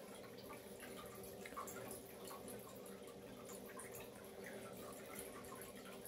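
Faint trickling and dripping of water in an electric pet drinking fountain as it circulates, over a low steady hum.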